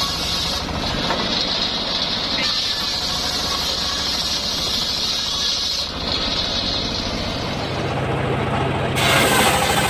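Homemade circular sawmill running: a steady engine drone with the spinning blade's whine. About nine seconds in, a louder, harsher noise sets in as the blade bites into the coconut palm log.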